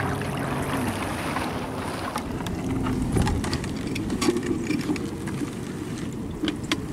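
Water splashing and draining as a homemade plastic-bottle minnow trap is pulled out of shallow water, then a thump about three seconds in and a few light clicks as the plastic bottle is handled on the grass, with wind on the microphone.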